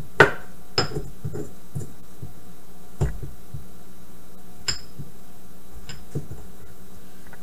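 Pestle pounding dried ginger in a white stone mortar: irregular sharp knocks and clinks, about nine in all, the loudest in the first second.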